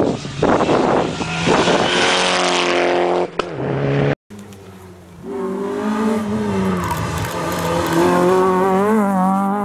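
Rally car engines at full effort. The first car's engine is revving hard, then falls steadily in pitch as it lifts off. After a cut, a Citroën Saxo rally car's engine rises and wavers in pitch as it accelerates through a bend.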